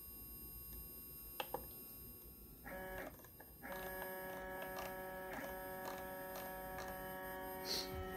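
Stepper motors of a Lowrider2 CNC driving the gantry along the Y axis, jogged from the controller's menu: a steady whine of several tones together that starts about two and a half seconds in, drops out briefly, then runs on. Before it, a click or two from the controller's knob.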